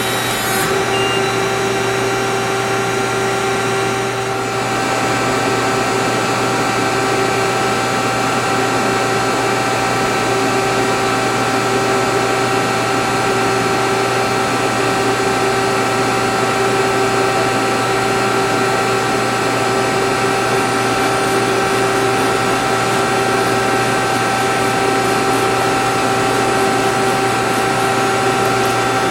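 Hydraulic CNC press brake's pump and motor running under power: a steady mechanical hum with a constant whine.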